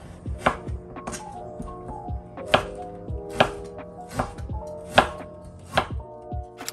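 Chef's knife slicing raw beef on a plastic cutting board, each cut ending in a sharp knock of the blade on the board, about seven knocks at an uneven pace, over soft background music.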